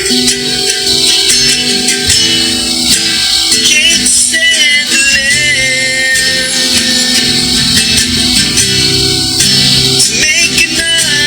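Loud, dense music with plucked guitar and rattling percussion, over held tones and a wavering vocal line.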